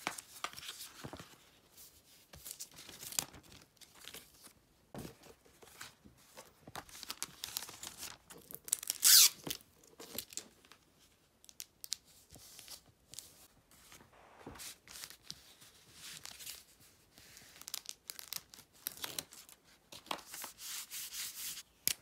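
Paper, card and a clear plastic sleeve rustling and crinkling under hands as an item is packed, in irregular bursts, with a short loud tearing sound about nine seconds in.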